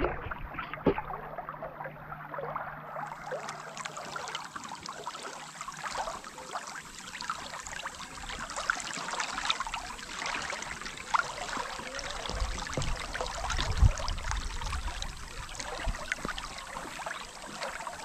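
Shallow river water rushing and splashing over rocks right at the microphone, a steady crackling flow with one low thump about fourteen seconds in.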